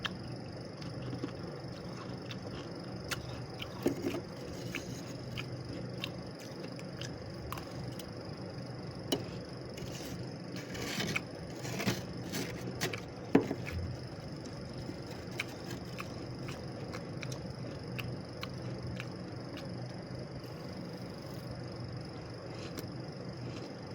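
Freezer frost being scraped and crunched in scattered short clicks and scrapes, busiest around the middle, over a steady background hum.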